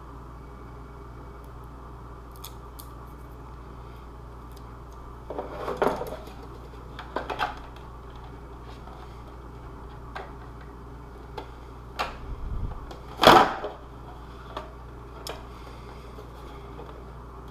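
Handling sounds of craft work with adhesive Velcro pieces: scattered small clicks and a few short rustling scrapes, the loudest about thirteen seconds in, over a steady low hum.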